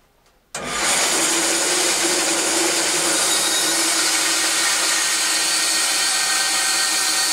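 Bench bandsaw cutting through 4x2 softwood: a loud, steady whir of the motor and blade in the wood, starting suddenly about half a second in.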